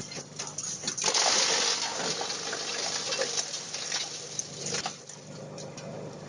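Sawdust-making wood grinder driven by a 37 kW electric motor, running with a steady rushing hiss of material passing through it, loudest about a second in.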